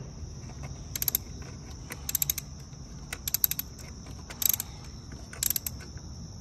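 Ratchet wrench clicking in short quick runs, about once a second, as it is swung back and forth on a socket extension to torque down a freshly hand-threaded spark plug.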